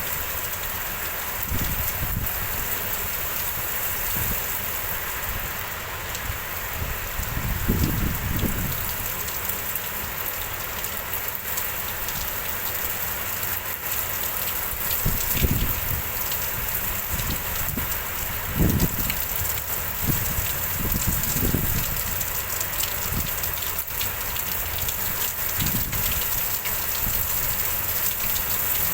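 Steady rain falling in a windstorm, with low rumbling gusts of wind on the microphone several times.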